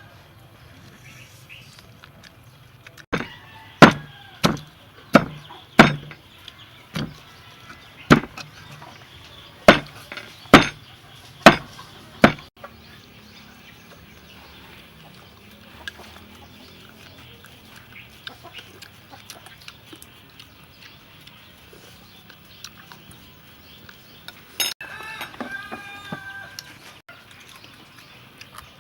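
A chicken clucking briefly near the end, over a low background hiss. Earlier, about a dozen sharp, loud knocks come irregularly over roughly ten seconds and are the loudest sounds.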